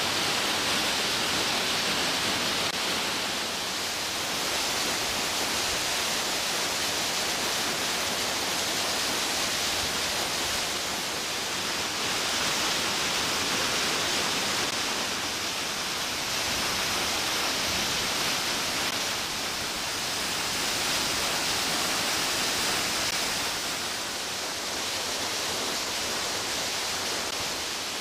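Waterfall: white water rushing steadily down stepped rock ledges and falling as a tall curtain. The level dips and rises slightly a few times.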